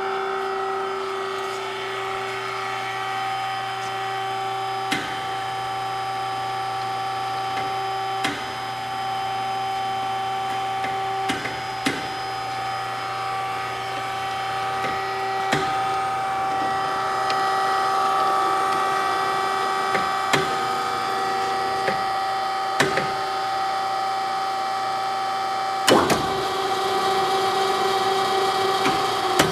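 Kasko GKS 400 CNC mitering cold saw running with a steady machine hum and whine. A few sharp ticks and clicks are scattered through it, and the sound grows a little louder near the end.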